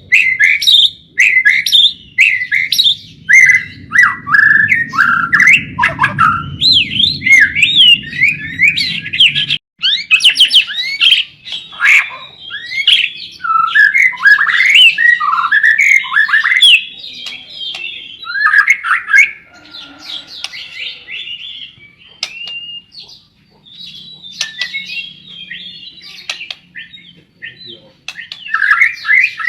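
White-rumped shama singing a long, rapid run of varied whistled and chattering phrases, loud and nearly continuous at first and softer after about twenty seconds. A low hum underneath cuts off suddenly about ten seconds in.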